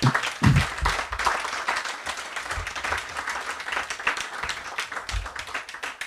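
An audience applauding, a dense patter of many hands clapping that thins out near the end.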